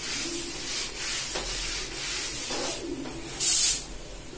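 Eraser rubbing across a whiteboard, with a short, louder hissing marker stroke on the board about three and a half seconds in.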